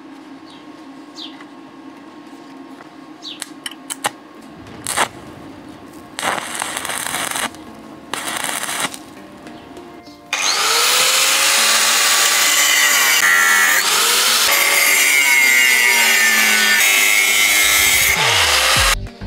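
Two short bursts of stick-welding crackle, after small metal clicks from working a nut on a threaded rod in a vise. About halfway through, an angle grinder's cutting disc starts cutting a rusty steel bar and runs loud and steady, its whine gliding up and down, until it stops just before the end.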